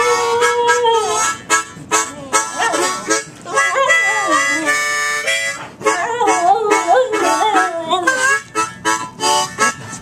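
Blues harmonica played with a rhythmic chugging, while a dog howls along in long, wavering notes that bend up and down, coming and going several times.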